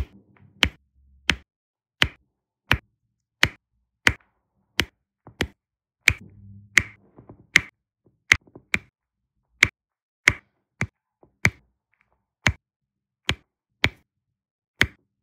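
Resin diamond-painting drills clicking as a diamond-painting pen's placer tip presses them onto the adhesive canvas, one sharp click about every two-thirds of a second.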